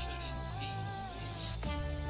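Electronic background music: a held synth melody over a steady bass, with a sharp hit about one and a half seconds in.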